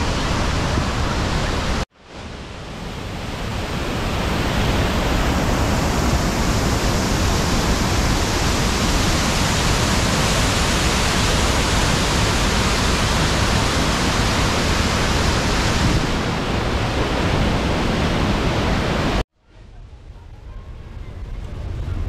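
Waterfall rushing: a loud, steady roar of falling water. It cuts out abruptly about two seconds in and again near the end, each time swelling back up.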